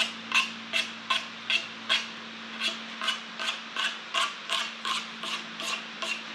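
Pencil drawn in quick strokes across the face of a wooden guitar body blank: a short scratch about two and a half times a second, marking lines to gauge flatness before sanding. A steady low hum runs beneath.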